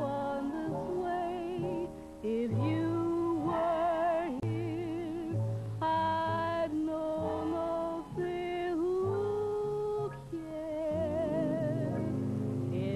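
A woman singing a jazz vocal with a big band backing her, holding several notes with a wide, even vibrato, heard through an old archival film soundtrack.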